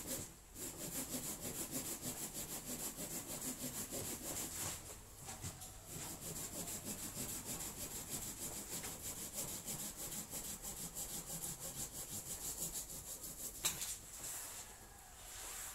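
Small hand saw cutting through a woody branch in quick back-and-forth strokes, about four a second, with a brief pause around five seconds in. A single sharp knock near the end.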